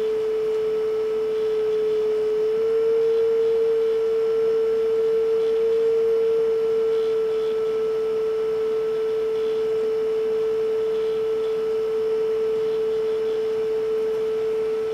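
A 440 Hz speed-calibration test tone playing from a cassette in a Fisher PH-480 boombox deck: a steady pure tone. Its pitch nudges up slightly about two and a half seconds in and settles back a little later, as the deck's motor speed is trimmed toward 440 Hz.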